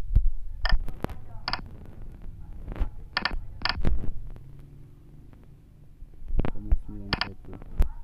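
Short electronic key beeps from the on-screen keypad of a phone CNC simulator app as G-code is typed in, one beep per keypress at uneven intervals, with a gap of about three seconds in the middle, over a low steady hum.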